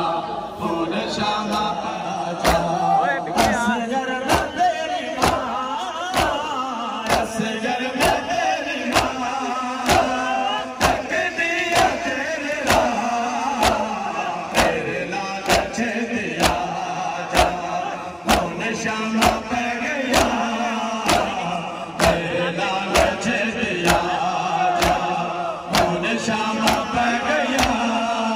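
Men chanting a noha, a Shia mourning lament, in unison, over the rhythmic slaps of matam: open hands striking bare chests together, about once every three-quarters of a second.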